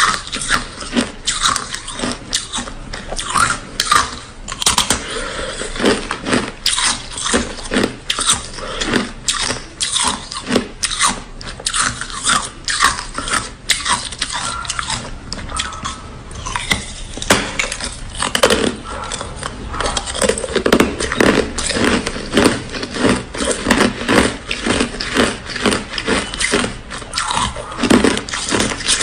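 Ice being bitten and chewed close to the microphone: a dense, irregular run of sharp, brittle crunches, several a second, that carries on throughout.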